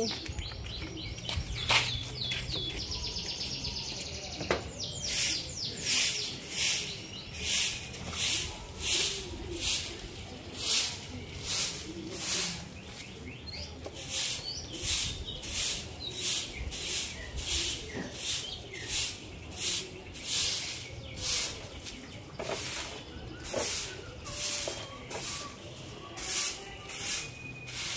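Long-handled stick broom sweeping leaves and grit across a concrete and paving-block walkway. It makes scratchy strokes about one a second, starting a few seconds in.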